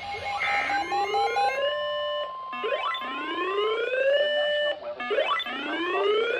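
Emergency alert attention signal: a whooping alarm tone that rises in pitch, holds briefly and repeats about every two and a half seconds. Short pulsed beeps come near the start, and a steady tone runs underneath for the first few seconds.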